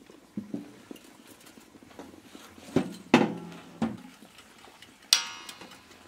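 Knocks and metal clatter from an old countertop toaster oven being handled on the ground: several thumps of its sheet-metal casing, the loudest a little after three seconds in. About five seconds in comes a short ringing metallic rattle as its glass door is swung open.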